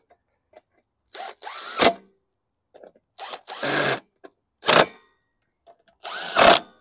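DeWalt power driver running in short bursts, spinning up and stopping several times, as it runs down the three bolts that hold a mower engine's recoil starter housing.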